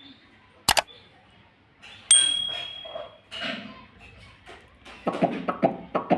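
Pet parrot's sounds: a sharp click under a second in, a ringing metallic ping about two seconds in that fades over about a second, then a quick run of short chattering calls near the end.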